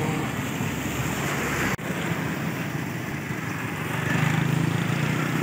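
Rainy street ambience: a steady hiss of rain and traffic on wet road, broken by a sudden brief drop-out just under two seconds in.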